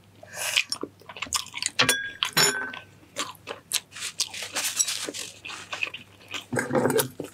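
Close-miked chewing of balut, a boiled fertilised duck egg: many short wet mouth clicks, with a louder stretch near the end.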